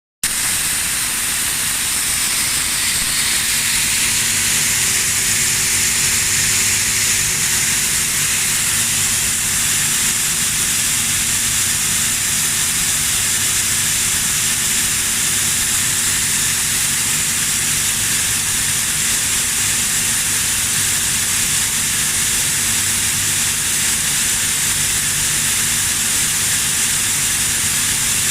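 Atlas Copco ZR145 two-stage oil-free rotary screw air compressor running steadily: an even hiss with a low hum underneath.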